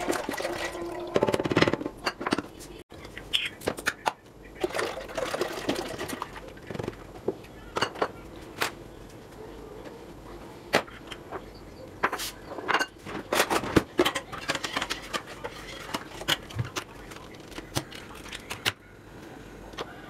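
Rice poured from a packet into a stainless steel pot of milk, a short rushing pour near the start. After it come scattered sharp clicks and knocks of kitchen handling around the pot.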